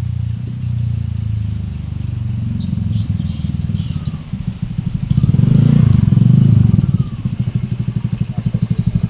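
Volvo six-cylinder diesel engine running, working on only two of its six glow plugs. It gets louder for a couple of seconds past the middle, then settles into a fast, even pulsing.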